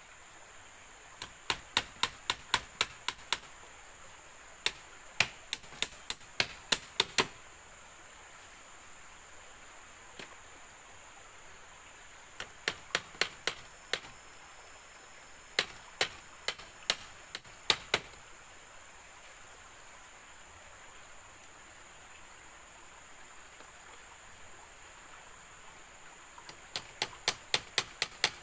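Hammer driving nails into a split-bamboo wall: five runs of quick sharp taps, about four a second, with pauses between the runs.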